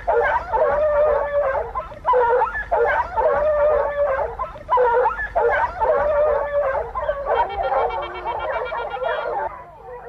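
A pack of scent hounds in full cry on the trail of wild boar: several dogs giving long, drawn-out bays at once, overlapping and coming in waves about every two seconds.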